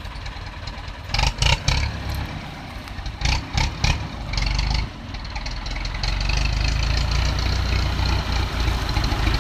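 A tractor's engine running and drawing nearer, growing louder from about halfway through. A few sharp knocks, loudest about a second in and again about three seconds in, stand out over it.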